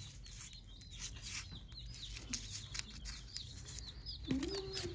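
Small birds chirping in short, high, repeated chirps, several a second, with faint rubbing and light ticks close by.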